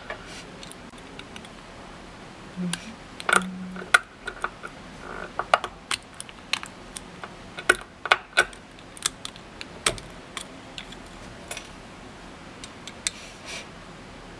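Irregular small clicks and snaps of plastic support material being picked, scraped and broken off a 3D-printed part.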